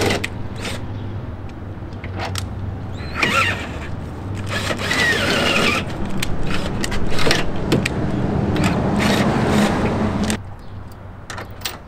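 Cordless drill running under load, its bit cutting into the car's front body metal for a hood pin mount, then stopping abruptly about ten seconds in.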